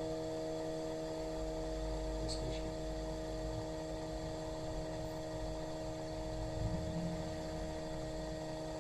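Steady electrical hum with several unchanging tones over a low rumble, the rumble stronger for the first few seconds.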